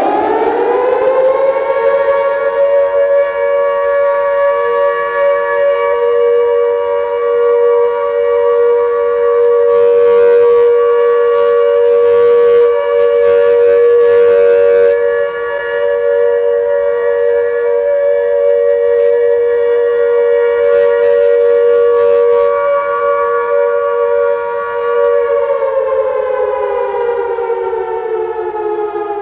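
Air-raid-style civil defence siren, the sound made for the 'Siren Head' creature. It has just wound up and holds one steady, chord-like wail for about twenty-five seconds, then begins to wind down, falling in pitch near the end.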